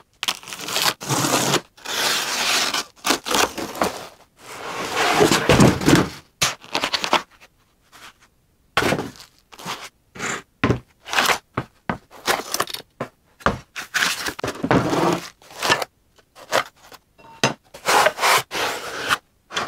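Unpacking noise: cardboard and packing foam scraping and rustling, with thunks as metal machine parts are pulled out and set down on a table. It comes as a quick, irregular run of short knocks and scrapes, with a brief pause partway through.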